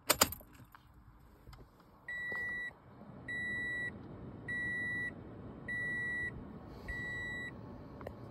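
A Toyota RAV4's dashboard warning chime beeps five times, each beep a steady high tone about half a second long, evenly spaced a little over a second apart, after a sharp click just as the sound begins.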